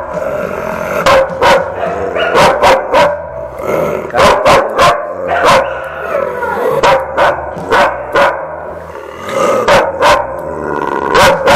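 A large shepherd-type dog barking aggressively over and over in quick volleys, teeth bared: an agitated, defensive dog.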